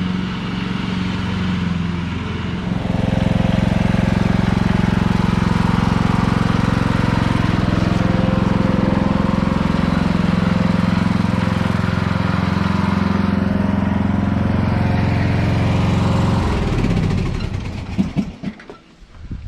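Lawn mower engine running steadily. It gets louder about three seconds in and falls away near the end.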